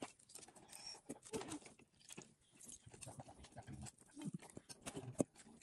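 Limes squeezed by hand over a stainless steel bowl: faint squelching and juice dripping into the bowl, with scattered small clicks as the fruit is handled.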